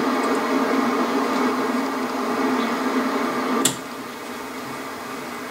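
Steady buzz and static from the speaker of a 1960s Marconi portable vacuum-tube TV. About three and a half seconds in there is a single sharp click of the rotary channel selector, and the noise drops quieter.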